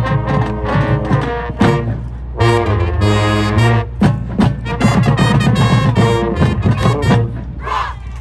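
High school marching band playing, with brass chords over sharp drumline hits. The music breaks off near the end.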